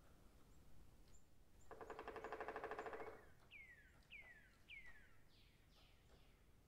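Faint woodland birdsong: a rapid trill lasting about a second and a half, then three clear whistled notes that each slide downward, with fainter, higher notes after.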